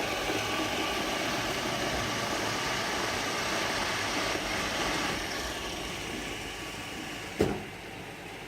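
iClebo Arte robot vacuum cleaner running steadily, growing a little quieter about five seconds in, with one sharp knock near the end.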